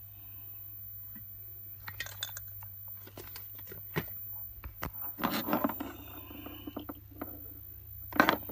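Scattered clicks and clinks from handling a coiled power cord and an aerosol can, with a longer rustling stretch a little past the middle and a loud short rustle near the end as the cord is picked up by hand. A low steady hum runs underneath.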